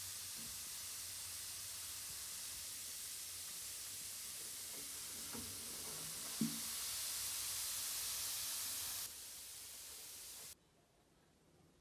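Bath bomb fizzing as it dissolves on bath water: a steady hiss with a single brief knock about six seconds in. The hiss drops a step in level near nine seconds and cuts off suddenly shortly before the end.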